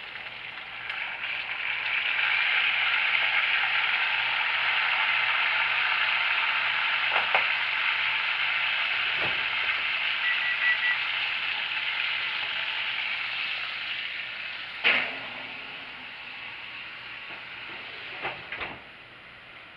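Whole chicken sizzling in hot oil and pan juices in a stainless steel skillet as it is turned, the sizzle swelling over the first couple of seconds and fading over the last few. A sharp knock comes about fifteen seconds in, with softer knocks before and after, and a brief high beeping about ten seconds in.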